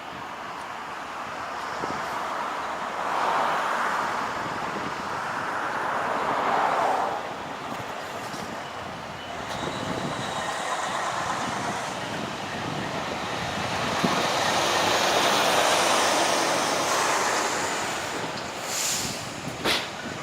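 Road traffic: vehicles passing one after another, each a swell of tyre and engine noise that rises and fades over a few seconds. There is a brief sharper sound near the end.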